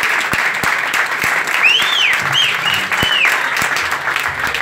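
Audience clapping and cheering, with several shrill whistles rising and falling about two to three seconds in.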